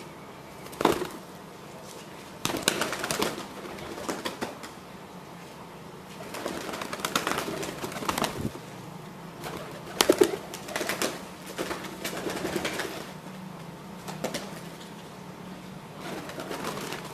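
Domestic pigeons cooing in repeated bouts, broken by a few short, sharp sounds, the loudest about a second in and about ten seconds in.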